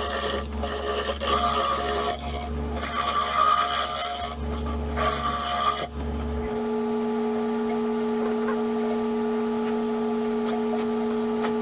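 Power sanding inside a wooden bowl spinning on a wood lathe: an uneven scratchy rasping over a low motor rumble. About six seconds in the sanding and rumble stop, leaving a steady hum from the lathe.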